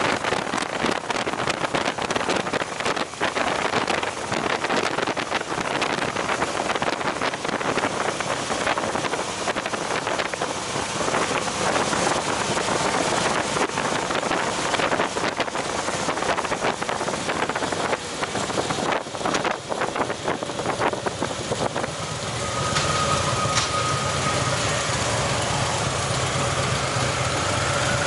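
Motorcycle on the move: rushing wind over the microphone with the engine running underneath. Near the end the rush eases and the engine's steady hum comes forward, with a faint steady whine, as the bike slows.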